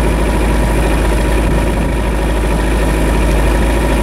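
Tow boat's engine running steadily with the throttle opened up, pulling a hydrofoil-mounted kayak.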